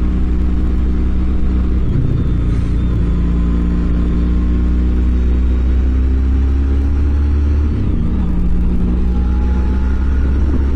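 BMW R18's big boxer-twin engine running under way, its note slowly climbing as the bike accelerates, with a short break and a drop in pitch about eight seconds in, as at a gear change.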